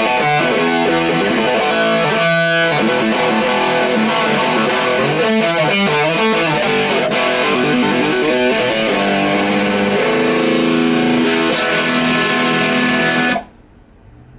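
Electric guitar played through a Marshall Valvestate 80V combo amp with the gain turned up, a run of distorted chords and riffs. The playing stops about a second before the end, leaving a faint amp hum.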